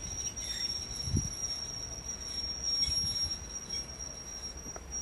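British Rail Class 101 diesel multiple unit running away along the line, the low rumble of its underfloor diesel engines and wheels on the rails fading, with a couple of soft low thumps.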